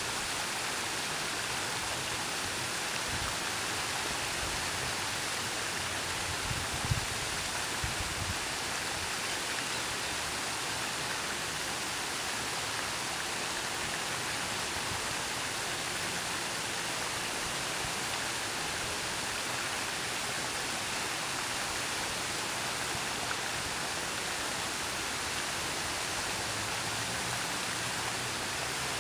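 Steady, even rush of falling water, as from a small cascade into a pond. A few soft low thumps come around seven seconds in.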